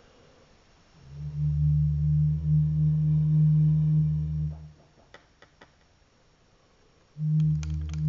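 Low, steady electronic drone from a Pure Data granular pitch-shift effect. It starts about a second in and cuts off about halfway through. A few faint clicks follow, and the drone comes back near the end.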